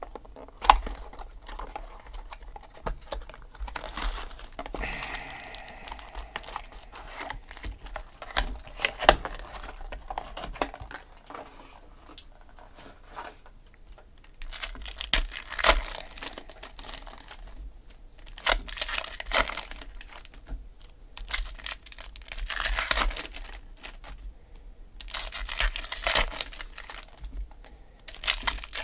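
Trading card pack wrappers crinkling and tearing as packs are ripped open by hand, in repeated bursts of a second or two, with a few sharp clicks as cards and packs are handled.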